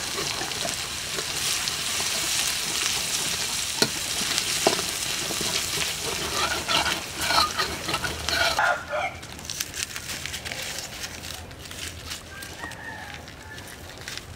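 Minced garlic and chili sizzling in hot oil in a steel wok, stirred and scraped with a metal ladle, with clinks of the ladle against the pan. The sizzling stops about nine seconds in, and a rooster crows faintly near the end.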